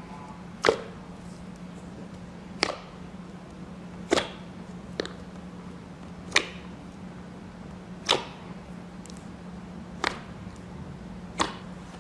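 Sharp popping snaps from slime being played with, seven of them about every one and a half to two seconds with a few fainter clicks between, over a steady low hum.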